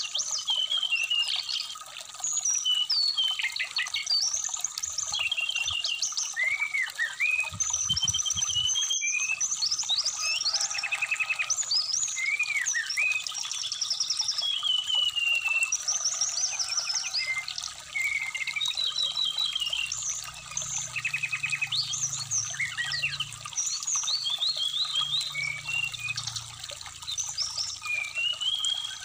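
Brown-chested jungle flycatcher (sikatan rimba dada coklat) singing a long, varied run of whistled phrases, slurred glides and quick trills, over the steady trickle of a running stream.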